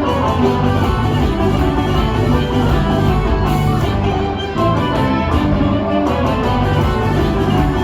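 Instrumental music for a holiday ice show, playing continuously at a steady level.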